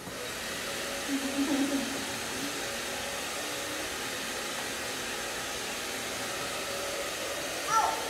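Handheld electric hair dryer switching on and blowing steadily.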